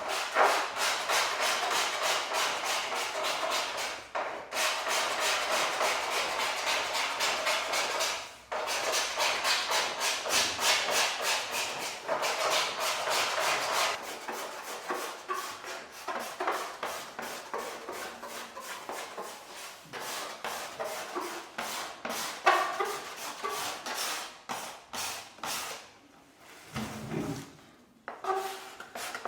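Rapid, even strokes of a hand tool working wood, several a second, louder through the first half and quieter after.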